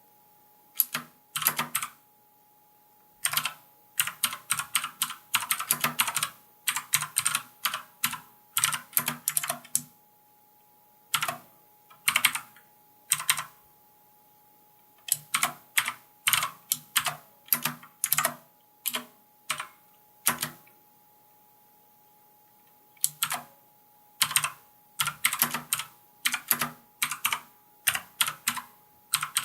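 Mechanical keyboard with Outemu Blue clicky switches being typed on: irregular runs of sharp clicks, broken by pauses of a second or two. A faint steady tone sits underneath.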